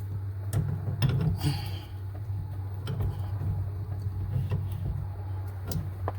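Scattered clicks and knocks as steering parts are handled and fitted by hand, over a steady low hum.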